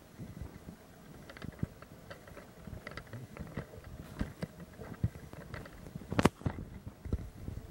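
Footsteps on a stone floor and camera handling noise: soft thuds about every half second to second with light taps between, and one louder knock about six seconds in.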